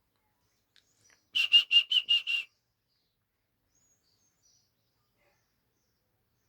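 A bird chirping: a quick run of about six evenly spaced, same-pitched chirps lasting about a second, starting about a second and a half in.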